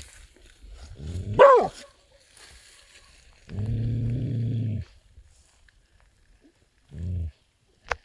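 Border Collie puppy vocalising: a short whine that rises and falls about a second and a half in, then a low, steady moan lasting over a second, and a shorter low one near the end.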